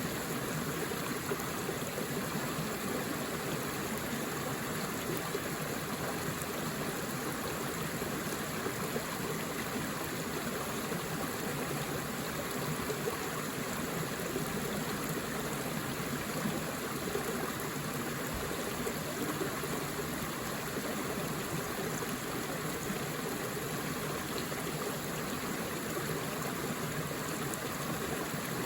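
Forest river flowing over rocks: a steady rush and babble of water with no changes.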